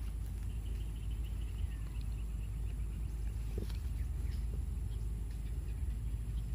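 Steady low outdoor rumble, with a faint rapid series of chirps for the first few seconds and a few small clicks of handling.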